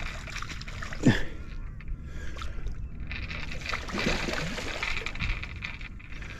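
A hooked eel thrashing at the water's surface, splashing hardest about four seconds in. A short, loud sound that falls in pitch comes about a second in.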